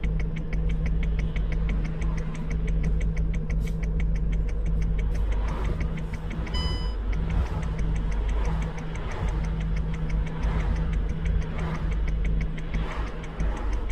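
Vehicle engine idling with a steady low rumble, heard from inside a vehicle cab, with a fast, even ticking running over it. A short electronic beep sounds about six and a half seconds in.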